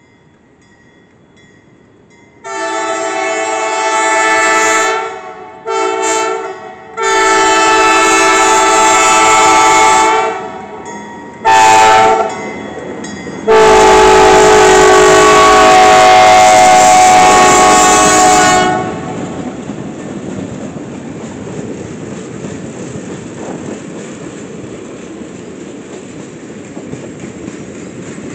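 Arkansas & Missouri ALCO C420 No. 44's air horn sounding five loud blasts, long and short in turn, each a chord of several tones, with the last the longest as the locomotive passes close by. After that comes the steady rumble and clickety-clack of the passenger cars rolling past.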